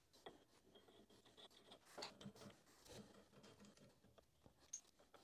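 Faint hand-work noises on a benchtop milling machine: light rubbing and scraping with a few small clicks, as the machine's metal table and parts are handled.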